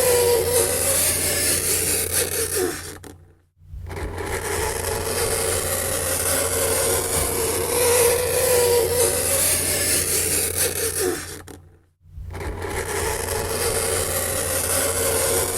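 Fingernails scraping across a chalkboard: a continuous scratchy screech with a wavering squeal. It fades out and comes back twice, about three and a half seconds in and again near twelve seconds.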